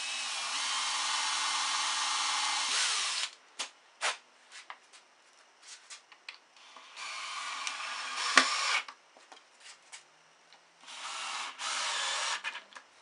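Cordless drill running in three bursts as it bores pilot holes into a clamped wooden cross brace: one long run of about three seconds, then two shorter runs, with small clicks and taps in between.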